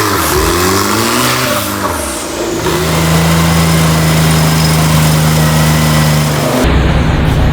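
Off-road 4x4 engine revving up and down, then held at steady revs for a few seconds. Near the end it cuts abruptly to a rougher, lower engine sound.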